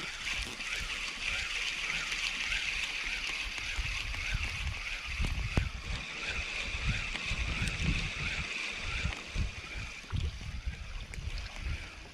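Spinning reel being cranked to wind in line: a steady gear whirr that rises and falls about twice a second with the handle turns, stopping about ten seconds in, with low knocks of handling underneath.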